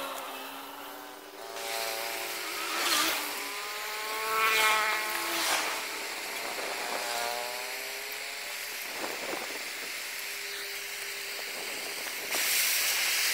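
Hand tools prying and scraping at the potted casing of a motorbike ignition coil held in a steel bench vise, with several knocks and wavering squeals that rise and fall. Near the end a gas torch starts up with a steady hiss.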